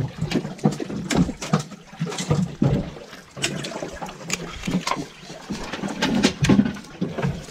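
Irregular knocks and clatter aboard a small fishing boat as a hooked grouper is handled with pliers on the deck, with a few low voices.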